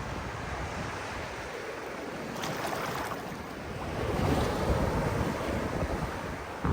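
Ocean surf breaking on a sandy beach, with wind buffeting the microphone; the wash swells louder about four seconds in as a wave breaks.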